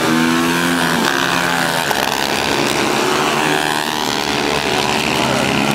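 Supermoto racing motorcycles running hard down the straight, several engines at once, their pitch rising and falling as the bikes pass one after another.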